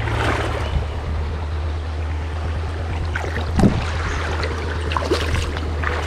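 Wading footsteps in a shallow creek, each step splashing and sloshing the water, about one a second, over a steady low rumble.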